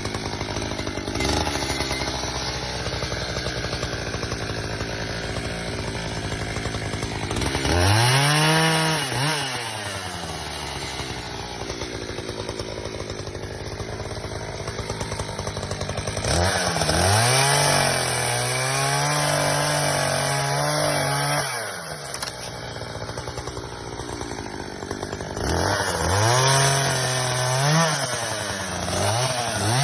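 Petrol chainsaw idling, then revved up three times: a short burst about a quarter of the way in, a longer run held at high revs for about five seconds in the middle, and a wavering run near the end, each dropping back to idle.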